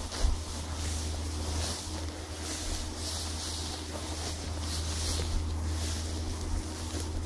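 Footsteps swishing through dry grass in a steady walking rhythm, over the steady low rumble of a diesel freight locomotive running nearby.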